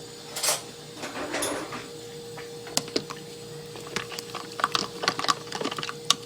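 A spoon stirring yeast into warm water in a cup, clinking and tapping against its sides in irregular light clicks, several a second, from about three seconds in. A faint steady hum runs underneath.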